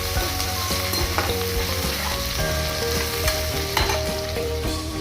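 Onions and ginger-garlic paste sizzling in hot oil in a pan on a gas burner turned low, stirred with a spatula that scrapes and knocks against the pan now and then.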